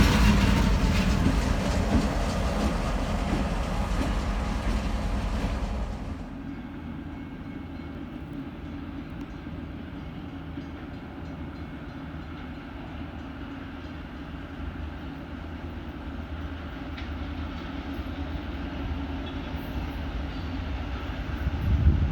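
Diesel freight train on the tracks: loud rattling of the passing cars and wheels that cuts off suddenly about six seconds in, leaving a steady low rumble of diesel engines that grows louder again near the end.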